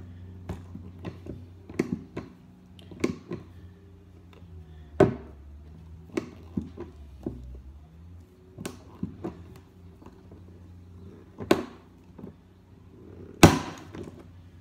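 Hand rivet gun being pumped to set a pop rivet through a padeye: a series of sharp metallic clicks and clacks at uneven intervals. The loudest snap, near the end, is the rivet's mandrel breaking off as the rivet sets.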